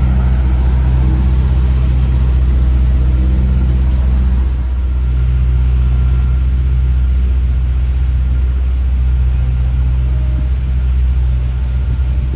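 A vehicle engine running with a steady low rumble that shifts slightly in pitch about four and a half seconds in.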